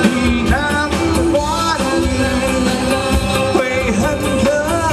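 Band playing a pop-rock song: a sung or played melody over a steady drumbeat with bass and guitar.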